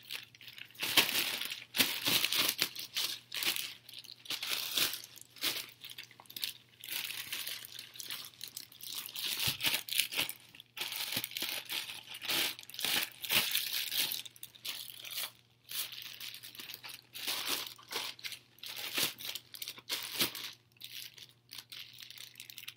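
Thin plastic bread bag crinkling and rustling in irregular bursts as it is handled and pulled on.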